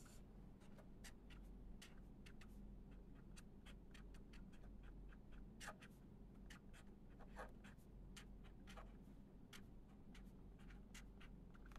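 Pen writing on paper: faint, irregular scratches and small taps of the strokes, over a low steady room hum.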